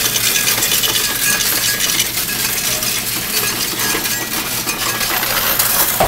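Pennies being fed into a Coinstar coin-counting machine: a continuous, dense metallic clatter of coins rattling through the machine as it counts them.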